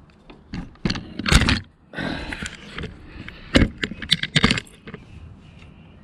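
Small metal parts clicking, knocking and scraping as a footpeg pivot pin is worked into a motorcycle footpeg bracket. A few sharp knocks, loudest about a second and a half in, with a short scrape about two seconds in.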